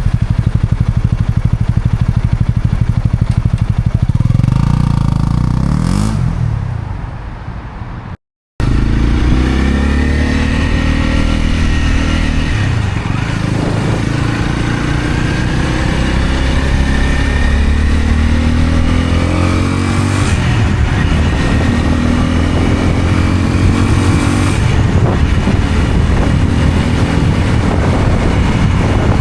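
Honda CL250 scrambler's single-cylinder engine and exhaust under way, the revs rising and falling again and again as the bike accelerates and slows through the gears. There is a short break in the sound about eight seconds in.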